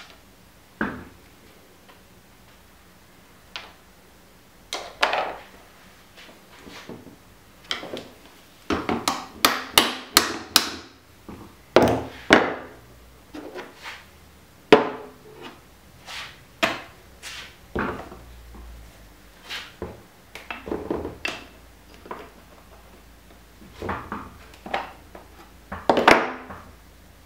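Hand tools and metal suspension-fork parts clicking, clinking and knocking on a workbench as the fork is taken apart. The sounds come at irregular intervals, with a quick cluster of clicks about a third of the way in and a few louder knocks later.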